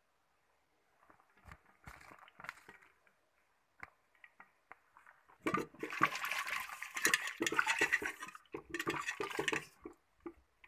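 A hand swishing and splashing through water in an aluminium pot, squeezing apart lumps of milk powder to mix it in. A few faint sloshes come first, then steady loud splashing from about five and a half seconds in until shortly before the end.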